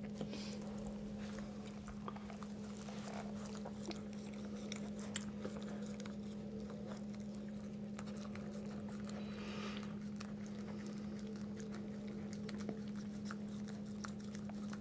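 Bichon Frise mother dog licking her newborn puppy clean: soft, wet licking and small mouth clicks over a steady low hum.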